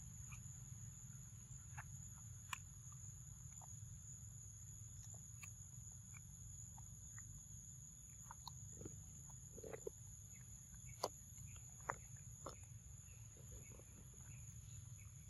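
Young macaque chewing and biting soft, wet fruit: faint scattered smacks and clicks, with a few sharper ones, the loudest about eleven and twelve seconds in. A steady low hum and a constant high whine run underneath.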